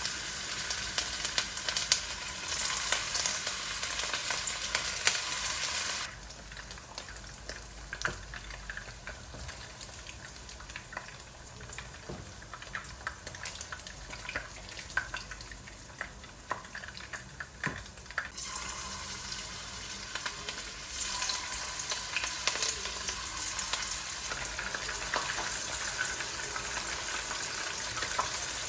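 Food sizzling in a frying pan, with scattered clicks and taps of a utensil stirring it. The sizzle drops much quieter about a fifth of the way in, leaving mostly the utensil clicks, and comes back strongly about two-thirds of the way through.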